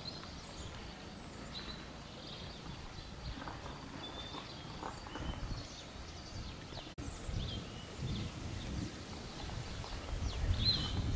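Footsteps of a person walking on a dirt path, soft thuds at about two steps a second, louder in the second half, with short high chirps of small birds now and then.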